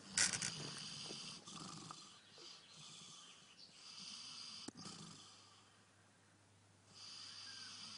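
Pig snoring in its sleep: slow, rasping breaths about every three seconds, the loudest right at the start. A brief sharp click about halfway through.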